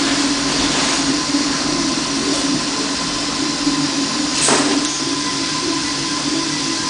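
Bukobot 3D printer running as it lays down the top layer of the printed gears: a steady mechanical hum with a thin steady high tone. A brief noise comes about four and a half seconds in.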